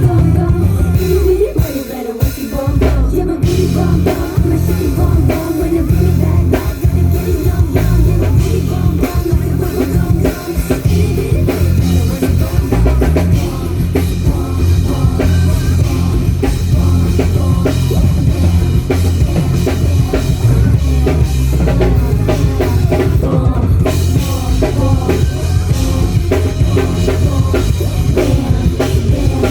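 Live rock band playing loudly through a PA system: a drum kit with a heavy bass drum, bass and guitar, with a singer.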